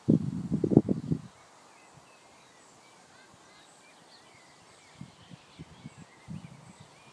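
Birds chirping in the background, with a burst of low rumbling wind noise on the microphone in the first second and a few faint gusts near the end.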